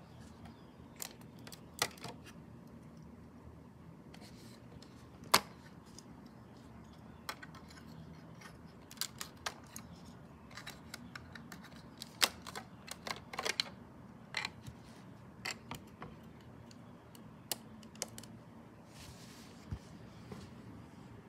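Irregular sharp clicks and light taps of plastic Lego pieces being handled, bunched in a quick flurry in the middle, with a short rustle near the end.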